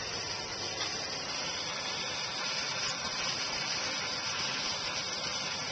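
Hand-held propane torch burning with a steady hiss, its flame played over a carbon-fouled spark plug to burn the deposits off.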